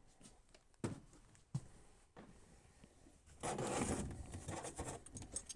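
Handling and movement noises: two light knocks in the first couple of seconds, then a louder rustling scrape about three and a half seconds in as a person climbs a step stool and reaches into an overhead cabinet.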